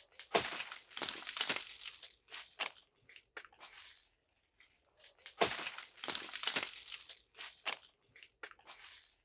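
Footsteps crunching and rustling through dry fallen leaves on bare earth, in two longer runs of steps with lighter scattered crunches between.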